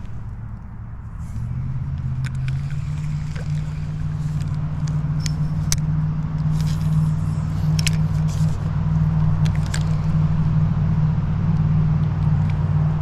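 A motor vehicle's engine running steadily, a low even hum that swells in about a second in and then holds, with a few light clicks over it.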